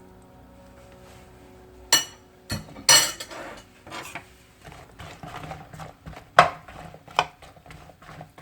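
Kitchen utensils clinking and scraping on cookware: a string of irregular sharp clanks starting about two seconds in, the loudest near the start of the string and again past six seconds.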